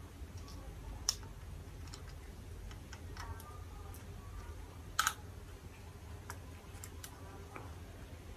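Small plastic clicks and taps of a memory card being fitted into the card slot of a Zoom F1-LP recorder, with two sharper clicks about a second in and about five seconds in, among fainter ticks.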